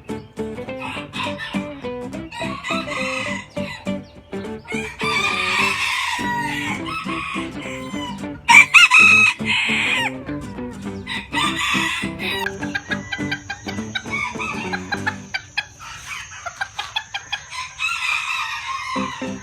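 Rooster crowing several times, with clucking between the crows; the loudest crow comes about halfway through.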